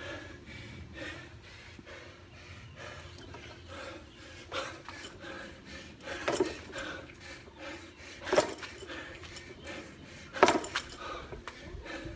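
Scattered knocks and clatter of hard objects being handled, with three sharp, loud impacts about six, eight and ten seconds in.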